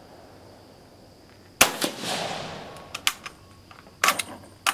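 Single rifle shot from a Vetterli 1870/87/15 converted to 6.5mm Carcano, firing a reduced cast-bullet load, about a second and a half in, with a fading echo after it. Then the bolt is worked with a few sharp metallic clicks about three and four seconds in, on an action that isn't smooth.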